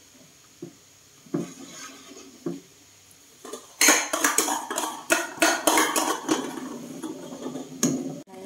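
Metal spoon knocking and scraping against a stainless steel pot while stirring: a few separate taps, then from about four seconds in a quick, dense run of clattering knocks.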